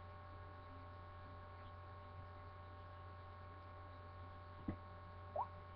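Steady low electrical hum with faint steady tones above it. A single sharp click comes about three-quarters of the way through, and a short rising tone just after it.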